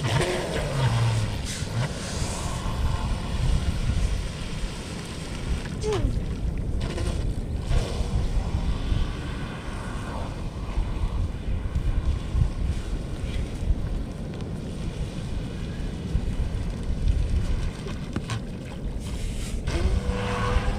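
Wind buffeting the microphone in a steady low rumble, over a radio-controlled electric boat running across shallow water. A few brief knocks come through.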